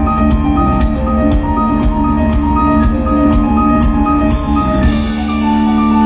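Rock band playing live, heard from the crowd: a drum kit beats under a fast repeating pattern of arpeggiated keyboard notes and a sustained low bass. The drums stop about four seconds in, leaving the held low note and the arpeggio.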